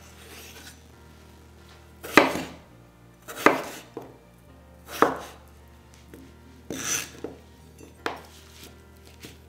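Chef's knife chopping peeled Yukon gold potatoes on a wooden cutting board: about five sharp chops at uneven intervals of one to two seconds, with a few softer taps of the blade between them.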